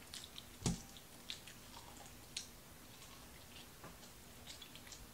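Close-up eating sounds: chewing and biting food, with scattered small wet mouth clicks and one sharp knock a little under a second in.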